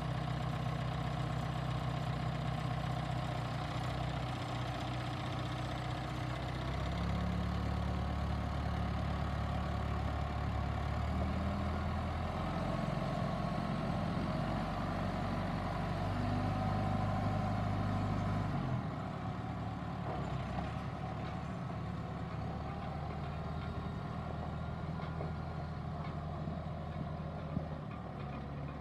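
John Deere 6330 tractor's diesel engine running steadily. It gets louder about a quarter of the way in, then drops to a quieter, more distant note about two-thirds of the way through as the tractor moves off.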